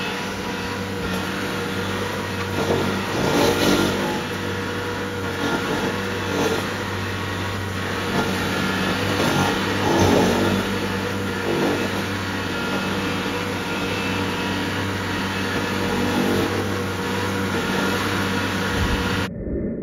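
Vermeer SC70TX tracked stump grinder running under load, its cutter wheel grinding into a stump and soil: a steady engine hum under loud, noisy grinding, with louder surges a few times as the wheel bites in. The sound cuts off abruptly at the very end.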